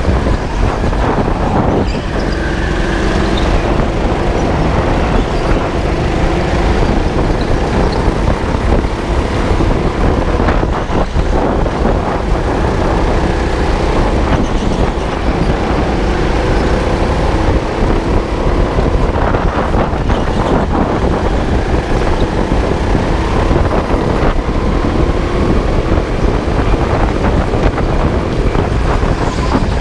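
Go-kart running at racing speed, heard from a camera mounted on the kart: a steady motor note that rises and falls through the corners over a heavy rumble of vibration.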